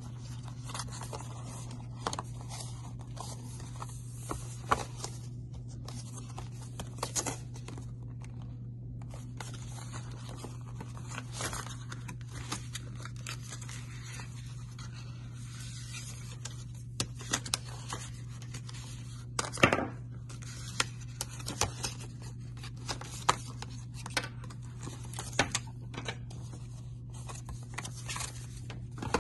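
Hands handling the stiff white paperboard packaging of an Apple Watch box: sliding and scraping along the cardboard inserts, with many short clicks and taps, more of them and louder in the second half. A steady low hum runs underneath.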